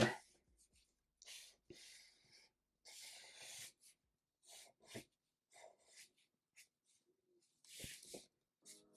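Black felt-tip marker drawn across paper in a series of short scratchy strokes, some quick flicks and some drawn out for about half a second.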